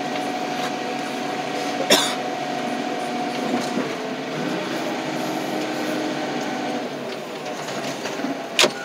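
Loader's diesel engine running steadily as the machine drives with a junk car held in its forks, its pitch shifting about midway. Two sharp knocks, about two seconds in and near the end.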